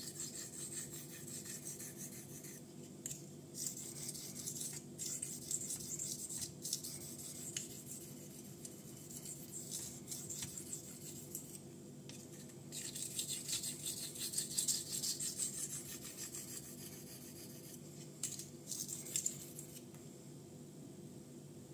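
A 440C steel knife blade stroked back and forth over a wet 5000-grit Honyama Japanese natural whetstone: a hissy scraping in runs of strokes with short pauses, the last strokes a little before the end. This is the fine-grit stage of sharpening. A faint steady hum sits underneath.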